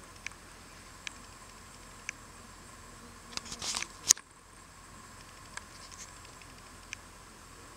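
Handling noise on the camera: a short rustle ending in a sharp knock about four seconds in, among faint sharp ticks about once a second over a steady low hiss.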